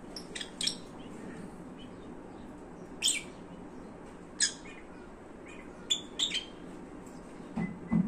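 Lutino peach-faced lovebirds giving short, sharp, high-pitched chirps, about ten of them scattered through the few seconds, some in quick pairs.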